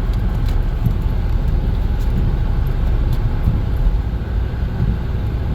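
Car being manoeuvred through snow, heard from inside the cabin: a steady low engine and tyre rumble with a few faint crackles.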